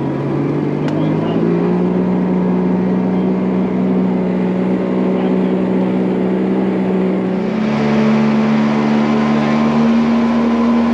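Boat motor running at speed, its pitch stepping up about a second in and again about seven seconds in. The crew say it is going as fast as it can and has sucked up leaves.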